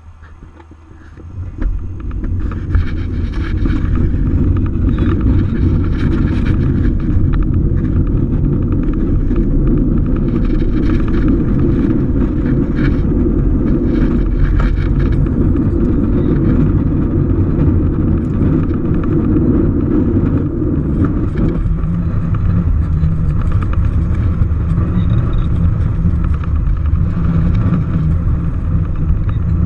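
Schempp-Hirth Nimbus 3D glider on its aerotow takeoff roll, heard inside the cockpit: a loud rumble of the wheel running over the runway mixed with airflow over the canopy. It builds over the first couple of seconds, then holds steady, and its tone changes about 21 seconds in.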